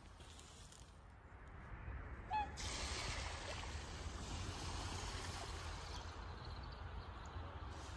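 Ducks landing on a pond, skidding across the surface with a splashing hiss that lasts several seconds, just after a short bird call about two and a half seconds in.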